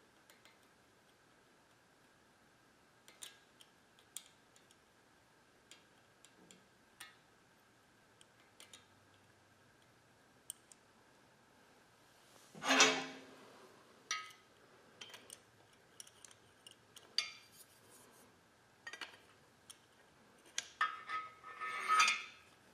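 Scattered metal clicks and clinks of a cam bearing installer tool being set up on its bar in the cam tunnel of an LS engine block. There is a louder metallic clatter about halfway through and a cluster of clinks near the end as a wrench is fitted to the tool, one of them ringing briefly.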